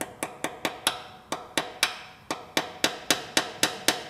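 Hammer repeatedly tapping a hardened steel splined stud extractor, metal on metal, driving it into a drilled-out broken exhaust manifold stud in an LS cylinder head. Quick, even taps about four a second, with a short pause around two seconds in.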